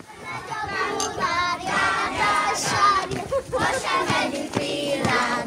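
A group of children singing together, several voices overlapping.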